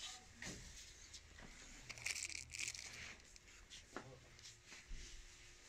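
Faint crinkling and rustling of plastic and fabric being handled close to the microphone, densest in a burst about two seconds in, with a few light knocks.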